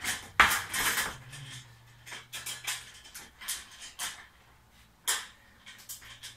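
Metal angle pieces of a wall bed frame clattering and scraping as they are handled and bolted together loosely with bolts and nuts: a loud clatter about half a second in, then scattered single clicks and knocks.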